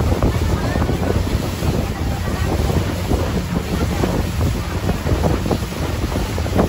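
Small open speedboat under way: wind buffets the microphone heavily over the rush and slap of water against the hull.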